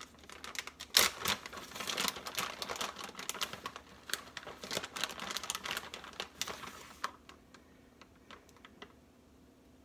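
Plastic bag of shredded mozzarella crinkling as the cheese is shaken out and sprinkled by hand, a dense run of small crackles with one louder snap about a second in. The crackling thins to a few scattered ticks about seven seconds in.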